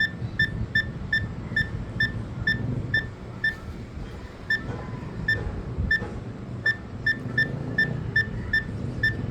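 Swim spa control panel keypad beeping as its buttons are pressed again and again to step the heater timer setting: short single-pitched beeps, about two to three a second, with a brief pause about four seconds in. A low steady hum runs underneath.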